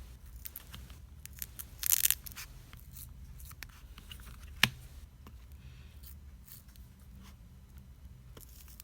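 A plastic pry tool working under a ZTE Blade Z Max phone battery, scraping and peeling it off the thick adhesive tape beneath it: scattered scrapes and small clicks, with a louder crackling tear about two seconds in and a sharp click a little later.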